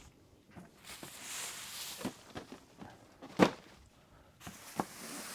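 Model kit box and packaging being handled: a rustle, then a sharp knock about three and a half seconds in and a lighter tap a little later.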